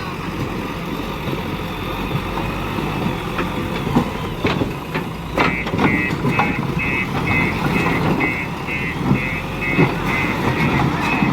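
Heavy construction machinery's diesel engine running steadily, with a few sharp knocks. About halfway through, a reversing alarm starts beeping, about three beeps a second.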